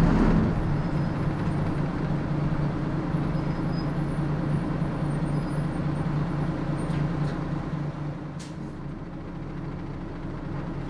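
City bus's diesel engine running steadily as the bus drives in town traffic, then easing off and dropping quieter about eight seconds in as the bus slows, with a short hiss near that moment.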